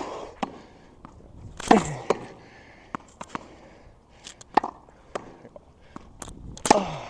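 Backhand wall rally: sharp knocks of a tennis ball hit by a racket, striking the wall and bouncing on the wet court, about one or two a second. Twice a short grunt with falling pitch comes with a stroke.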